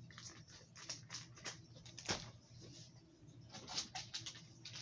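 Faint rustling and crinkling of plastic soft-bait packaging being handled and set down, with scattered clicks and one sharper knock about two seconds in.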